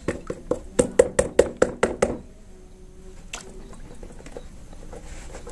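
Quick run of sharp taps, about five a second, on a water-filled plastic bucket, with the water splashing and sloshing. The taps stop about two seconds in, leaving faint sloshing as the bucket is rocked by hand.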